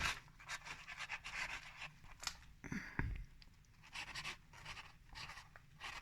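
Pen scratching on paper in short irregular strokes as a signature is written, with a soft thump about three seconds in.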